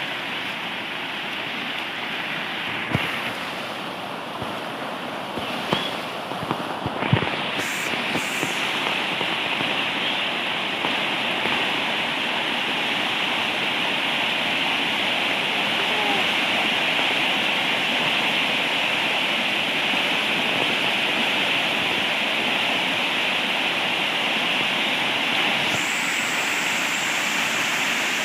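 Steady rushing water noise, growing a little louder about seven seconds in, with a few short knocks in the first seconds.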